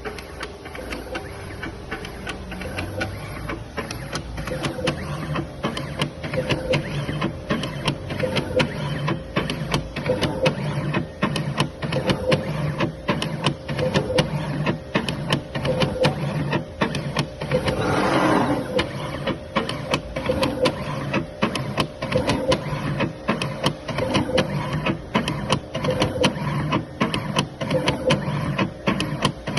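Automatic CNC LED-soldering machine running its cycle: motors whirring under a dense stream of mechanical clicks, with a stronger tick about once a second and a steady hum. A short hissing rush comes about two-thirds of the way through.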